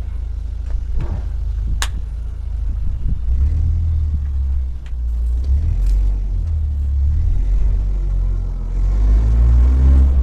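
Heavy truck's diesel engine idling with a steady low rumble that rises a little near the end, with a couple of sharp metallic clicks about two and six seconds in.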